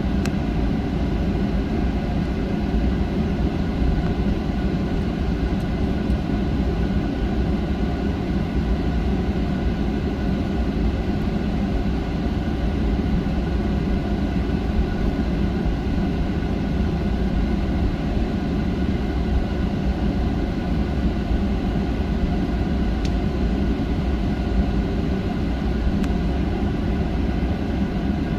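Steady cabin noise inside a Boeing 737-900 taxiing: a constant low rumble from the CFM56 engines at taxi power, with a few steady whining tones above it.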